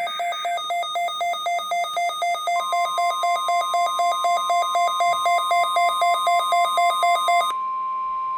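Electronic alert receiver beeping rapidly in a two-pitch warble, about three beeps a second, then cutting off suddenly near the end. Under it, from about a third of the way in, the steady 1050 Hz NOAA Weather Radio warning alarm tone is sent for the required weekly test.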